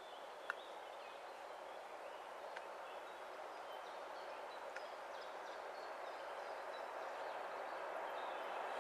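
Distant M62 diesel locomotive with its works train approaching along the line, heard as a steady noise that grows gradually louder. Faint bird chirps over it, and a single sharp click about half a second in.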